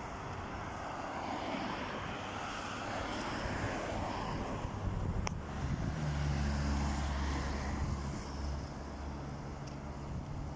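Road traffic noise from cars on a multi-lane road. About six seconds in, a car passes close by and its low engine and tyre hum swells for a couple of seconds, then fades.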